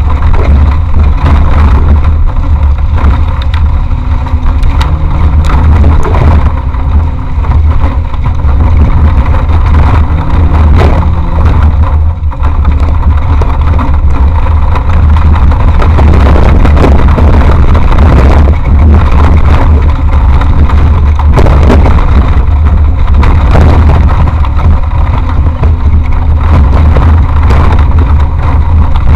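Off-road race vehicle's engine running and revving as it is driven hard over rough ground, heard from a camera mounted on the vehicle. A heavy steady low rumble carries scattered knocks and rattles throughout.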